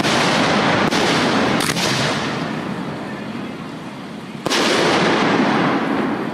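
Fireworks shells bursting in a show: four sharp bangs, at the start, about a second in, just under two seconds in and about four and a half seconds in, each trailing off in a long noisy rumble.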